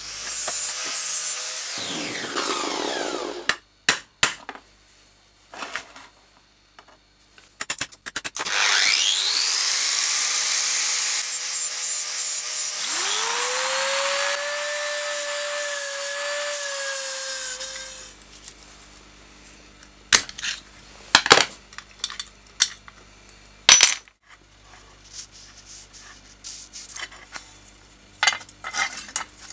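A power tool grinds at the steel lamp housing's rivets, in a short burst and then in a longer run of about nine seconds whose pitch glides and then settles. After that come scattered sharp metallic clicks and knocks as the loosened lamp parts are handled.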